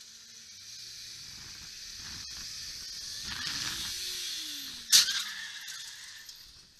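Faint traffic hiss that slowly builds, then about five seconds in a single sharp crash as a scooter hits a car, trailing off in a short clatter.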